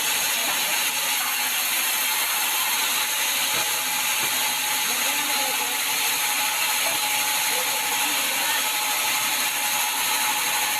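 Sawmill saw running steadily through a sengon (albizia) log, a continuous even noise with no breaks.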